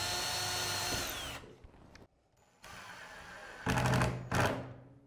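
Ryobi cordless driver driving a screw through a bump stop into a metal sliding-door track. It runs for about a second and a half with a high whine that drops as it stops, then runs again after a short pause, louder near the end.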